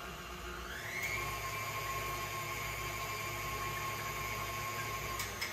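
Electric stand mixer's motor whining as it beats the liquid ingredients for tennis roll dough. The pitch rises as it speeds up about half a second in, then runs steadily with a low hum. A click sounds near the end and the whine drops away.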